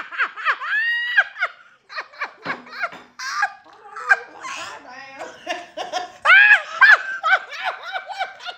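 A woman laughing hard in quick, high-pitched repeated "ha" pulses, easing off briefly about two seconds in and peaking loudest about six seconds in.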